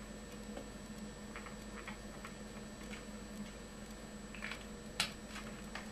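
Marker pen drawing on a latex modelling balloon and hands handling it: faint, scattered squeaks and ticks, with a sharper click about five seconds in.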